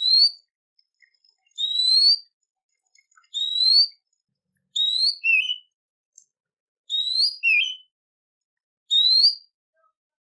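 A songbird repeating a short whistled phrase six times, about every one and a half to two seconds: a rising whistle, often followed by a quick lower slurred note.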